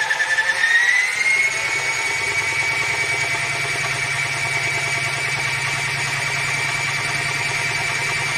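Mini washing machine's spin-dryer motor running at speed: a steady high whine over a low hum. The whine dips and climbs back in pitch in the first second or so, then holds steady.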